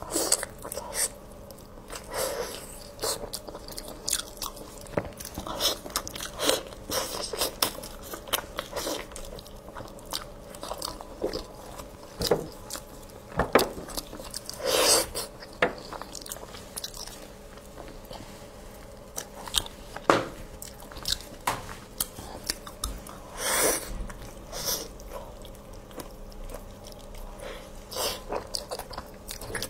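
Biting and chewing of braised pig tail: a person's mouth working through soft, fatty meat, with irregular smacks and clicks spread through the chewing.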